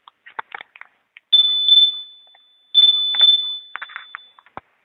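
An electronic alarm buzzer sounding twice in long, steady, high-pitched tones, with faint clicks and rustling around them.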